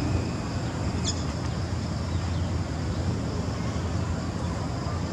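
Steady outdoor background rumble, the low, even noise of distant traffic and wind. About a second in comes a single brief high chirp.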